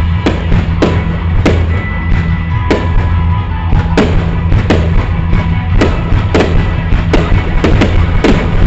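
Loud rock-style show music, with firework shells bursting in quick, irregular sharp bangs over it, two or three a second.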